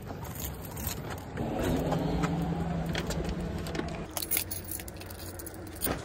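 A car goes by on the street with a steady engine hum for a few seconds. Then, about four seconds in, keys jangle and click in a front-door lock as the door is unlocked.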